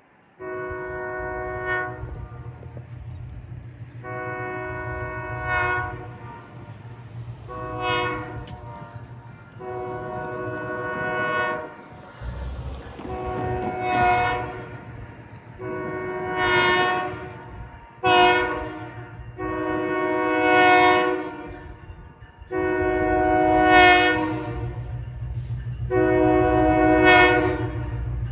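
Diesel locomotive's air horn sounding the grade-crossing signal, long, long, short, long, twice over and starting a third time, with the locomotive's engine rumbling underneath. It grows louder as the train approaches.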